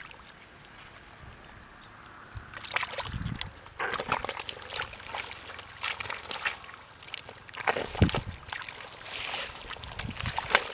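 Hands sloshing and splashing through shallow muddy water and weeds in irregular bursts, quiet for the first two seconds or so, then busier.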